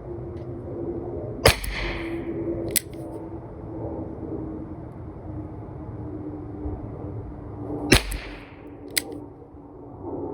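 Two shots from a Smith & Wesson K-22 K-frame .22 LR revolver loaded with low-velocity CCI Quiet rounds, about six and a half seconds apart. Each is a short crack with a brief trailing hiss, followed about a second later by a smaller sharp click.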